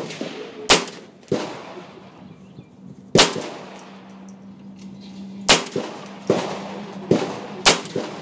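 Semi-automatic AR-15 pistol with a Troy Claymore muzzle brake firing single shots at uneven intervals, about seven sharp reports, some louder than others, each with a short ringing tail.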